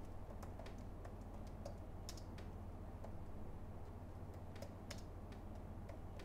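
Typing on a computer keyboard: irregular runs of key clicks, over a low steady hum.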